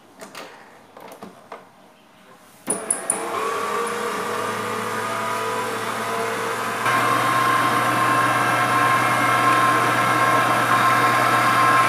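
Electric stand mixer switched on after a few light clicks, its motor starting about two and a half seconds in and running steadily with a whine as it mixes a stiff sablé dough. It gets louder about seven seconds in.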